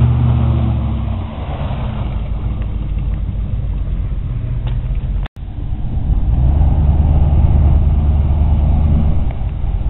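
1990 GMC Suburban's V8 engine running under load as the truck drives through the mud, then running louder as it climbs a dirt mound. The sound cuts out for an instant about five seconds in.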